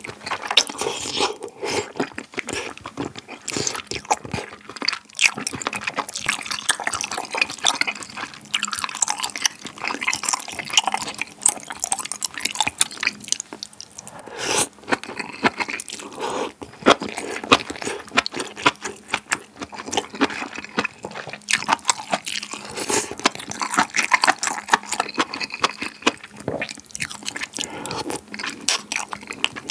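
Close-miked slurping of wide, slippery glass noodles (뉴진면) and flat noodles out of malatang broth, with wet chewing, many short slurps and smacks in a steady run.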